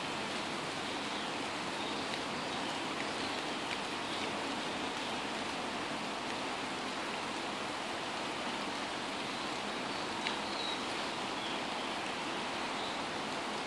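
Steady rain falling on trees, an even hiss with a few sharper single drops standing out, one a little louder about ten seconds in.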